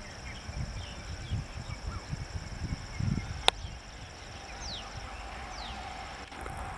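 Trackside outdoor ambience: a steady high insect drone with a few short bird chirps, over a low irregular rumble. Near the end the faint hum of the approaching electric train begins to build.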